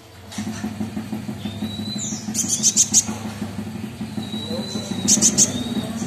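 Crimson sunbird calling twice: each time a thin, level whistle followed by a quick run of sharp, very high chirps. Under it runs a steady low hum, starting just after the beginning.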